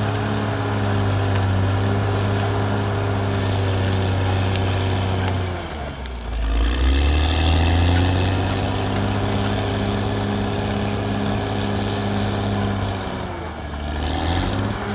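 Caterpillar D6R XL bulldozer's diesel engine running steadily at work. Its engine speed sags sharply twice, around the middle and near the end, then picks back up.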